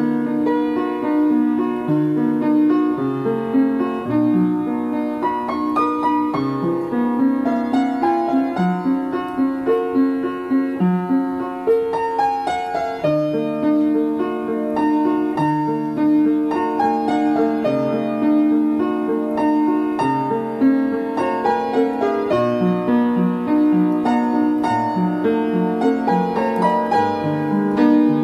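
Upright piano played solo: a continuous flowing melody over lower notes that keep sounding underneath, with no breaks.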